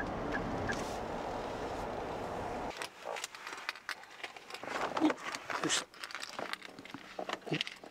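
Steady road and engine noise inside a kei camper van's cabin while driving, cutting off about three seconds in. Then soft rustling and scattered light clicks as quilted insulating shades are fitted over the windshield and side windows.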